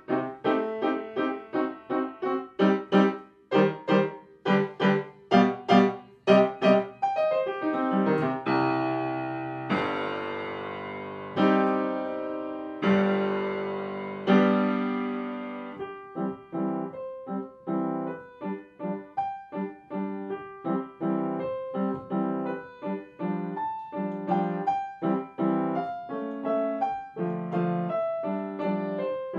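Background piano music: quick, bouncy notes, then a few held chords that ring and fade about a third of the way in, then quick notes again.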